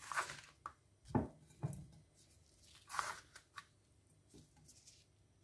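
Gloved hand scooping diced pineapple core off a plastic cutting board and dropping it into a glass jar: several brief, soft scrapes and knocks spread over a few seconds.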